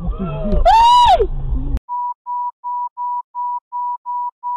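A loud high-pitched human cry that rises and falls once, over low vehicle rumble. The audio cuts off abruptly and a run of short electronic beeps follows, all at one pitch, about three a second.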